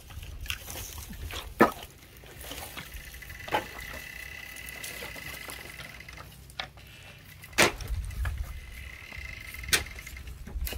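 Dry wooden poles knocking against each other as they are picked up and gathered by hand: a few sharp separate knocks, the loudest about three quarters of the way in. A steady thin high tone comes and goes behind them.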